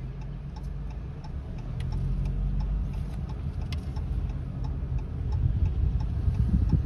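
Car cabin at low speed: a steady low engine and road rumble that swells near the end, with a faint regular ticking about twice a second.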